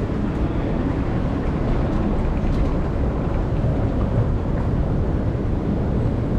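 Steady low rumble of a Singapore MRT train in motion.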